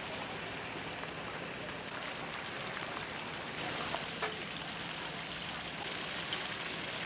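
Red spice-coated chicken pieces deep-frying in a wok of hot oil, the oil bubbling and sizzling steadily. A brief click about four seconds in.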